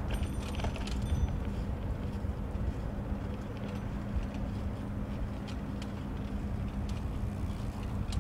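A shared bicycle rolling along a paved path: a fluctuating low rumble of tyres and wind on the microphone, with a light metallic rattle and jingle in the first second and a steady low hum underneath.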